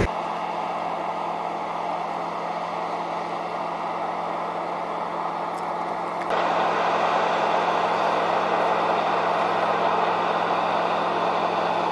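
Crawler bulldozer's diesel engine running steadily as it pushes through deep snow, getting louder about halfway through.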